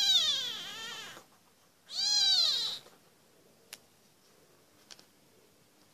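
Very young kitten meowing twice with thin, high-pitched calls: the first wavers up and down and trails off about a second in, the second is shorter and rises then falls at about two seconds.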